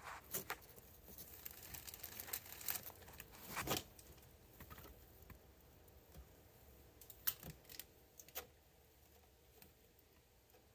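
Faint scattered clicks and rustles, the sharpest about seven seconds in, settling to a quiet hiss over the last two seconds.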